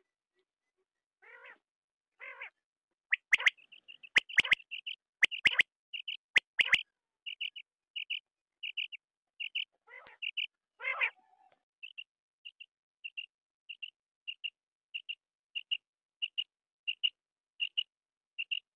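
Quail calling: a few low, rasping calls, then a run of sharp clicks mixed in with the calls, then a long even series of short high chirps at about two a second.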